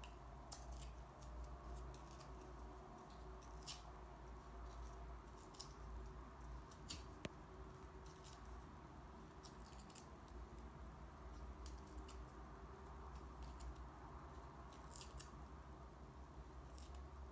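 Faint short rips and crinkles of coloured paper being torn by hand into small pieces, coming irregularly every second or so over a low steady hum.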